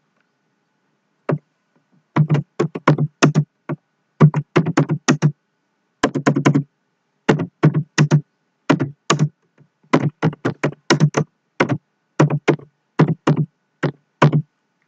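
Typing on a computer keyboard: quick, uneven runs of key clicks broken by short pauses, starting about a second in.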